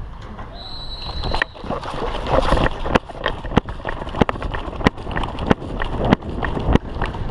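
Footsteps on concrete at a walking pace, about one step every two-thirds of a second, over a steady rustle of clothing and gear.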